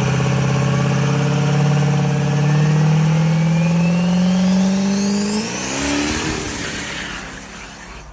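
Turbocharged diesel pickup engine revving as it pulls away, its note climbing slowly for about five seconds while a turbo whistle rises steeply above it. The sound then fades quickly as the truck drives off.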